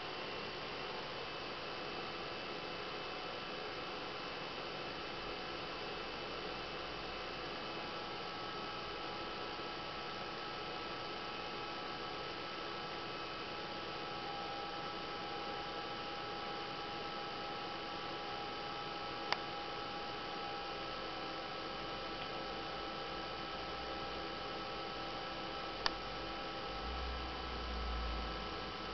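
BenQ W500 LCD projector's cooling fan running steadily: an even whooshing hiss with several faint steady whining tones in it. Two sharp clicks about six seconds apart come in the second half, and a brief low rumble near the end.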